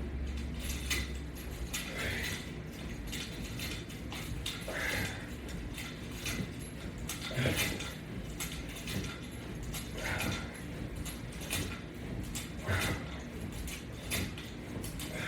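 Resistance-band exercise rig clicking and rattling as it is worked through repetitions, with a louder swell about every two and a half seconds.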